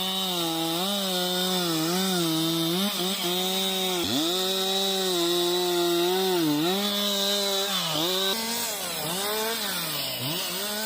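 Two-stroke chainsaw running at high revs while cutting wood. Its pitch dips briefly again and again and recovers as the chain bites.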